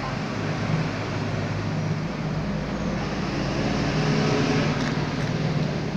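Steady background rumble and hiss with a low hum, growing slightly louder around the middle and easing off near the end.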